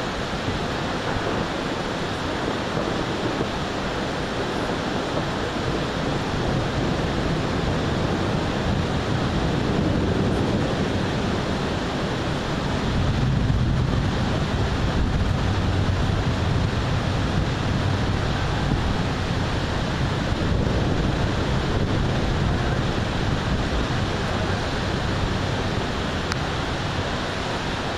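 Thunderstorm wind and rain as a steady rushing noise, with wind catching the microphone. It grows louder and deeper around the middle.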